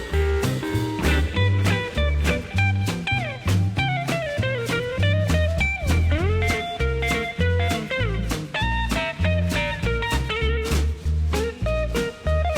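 Background music: a bluesy guitar tune with sliding, bending notes over a bass line and a steady beat.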